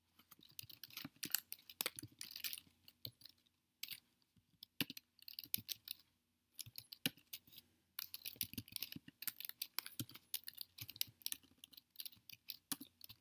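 Typing on a computer keyboard: quick runs of keystrokes, broken by short pauses about four seconds in and again about six seconds in.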